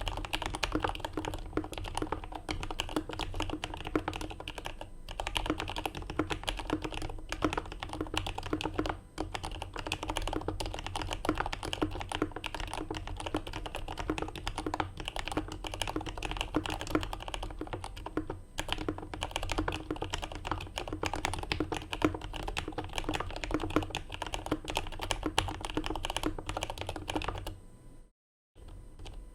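Fast, continuous typing on a CA66 mechanical keyboard with lubed Turquoise Tealios linear switches, an aluminium plate and GMK keycaps: a dense run of keystrokes with a few short pauses, stopping near the end.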